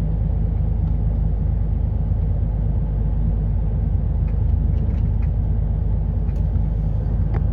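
Semi-truck's diesel engine running steadily under way, with road rumble, heard from inside the cab. There are a few faint clicks in the second half.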